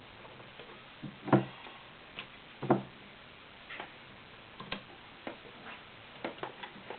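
Scattered clicks and knocks from hands readying an all-metal sewing machine and a thick stack of cotton for sewing, with two louder knocks about a second and a half in and just under three seconds in. The motor is not yet running.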